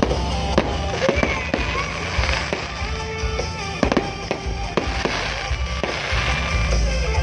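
Aerial fireworks bursting in an irregular string of sharp bangs and crackles, over music with a heavy bass.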